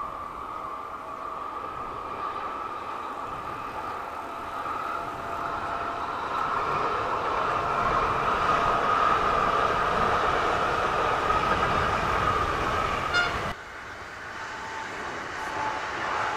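Pesa Elf 2 (27WEb) electric multiple unit passing, with a steady whine from its traction drive over the running noise, growing louder as it goes by. About three-quarters of the way through it cuts off abruptly, and a second Elf 2 unit is heard approaching, its whine at a different pitch.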